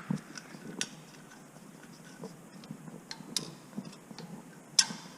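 A few scattered light metallic clicks and taps of hand tools and parts on the tractor's diesel engine while an injector is being fitted; the sharpest click comes near the end.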